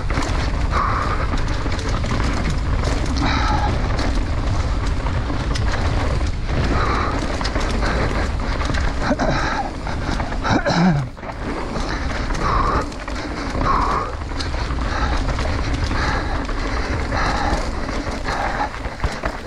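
Mountain bike ridden fast down a dirt forest singletrack: steady wind and tyre rumble on the handlebar microphone, with frequent knocks and rattles from the bike over roots and bumps.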